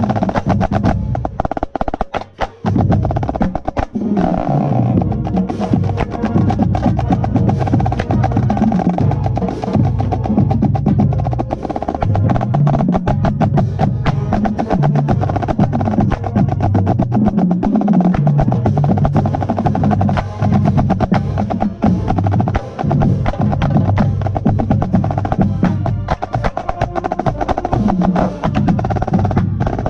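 Marching snare drum heard up close, playing fast strokes and rolls over a full marching band with brass and a moving bass line. The band drops out briefly about two seconds in, then plays on.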